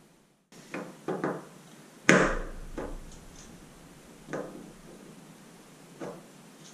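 Knocks and clicks of a hand tool and steel wire against a plastic wheel hub as the tensioning wire is pushed into its slit. There are about seven separate knocks, the loudest about two seconds in.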